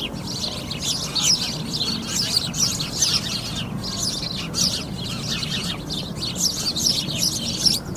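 A flock of sparrows chirping without pause, many short calls overlapping, over a low steady hum.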